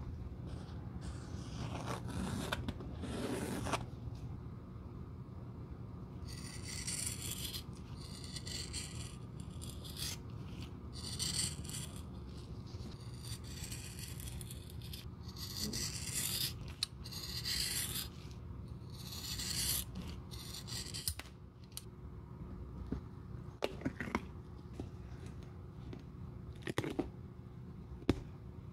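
Large steel scissors cutting a sole shape out of a thin black rubber sheet: a run of short rasping cuts, each about half a second to a second long, through the middle of the stretch, over a steady low hum.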